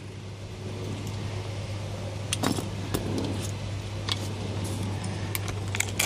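A car key on its keyring jangling, with scattered light clicks as it is handled against a removed ignition lock cylinder, over a steady low hum.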